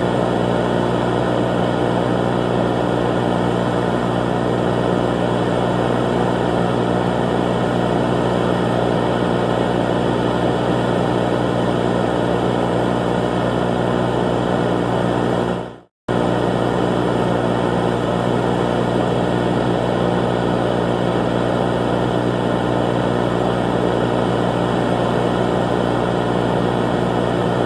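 A loud, steady droning hum with an unchanging pitch. A bit past halfway it dips sharply into a moment of silence, then comes back abruptly at full level.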